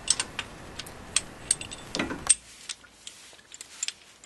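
Light metallic clicks and clinks of a brake caliper piston rewind tool being picked up and handled, with a few sharp taps scattered through. A faint low background noise cuts off a little after two seconds in.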